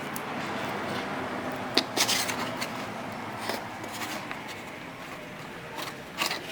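A tool cutting and scraping at a melted plastic shift-cable housing: small clicks and scrapes with a few sharper snaps, the cutter not getting all the way through.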